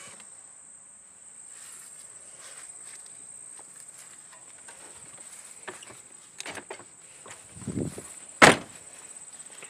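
Crickets trilling steadily in a single high continuous tone, with a few small handling clicks and then one sharp, loud thump about eight and a half seconds in, the Lincoln Mark VIII's driver's door being shut.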